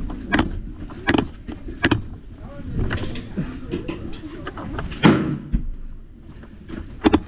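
Airsoft gunfire: sharp snaps about a second apart over the first two seconds, a louder burst about five seconds in, and a quick double snap near the end.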